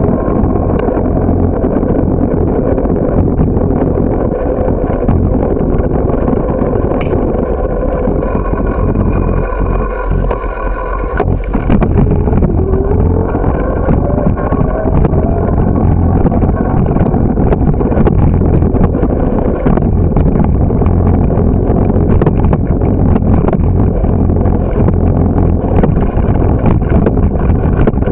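Wind buffeting the microphone of a camera on a moving bicycle, a loud steady rumble mixed with the clicks and rattle of riding over pavement. It eases for a couple of seconds about ten seconds in.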